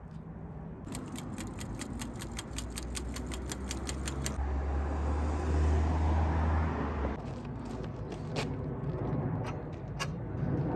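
A motor vehicle's low engine rumble swelling to a peak about six seconds in and then fading, with a fast, even clicking, about six a second, during the first few seconds.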